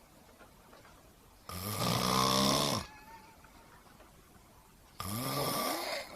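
A person snoring: two long snores about three and a half seconds apart, the first lasting over a second.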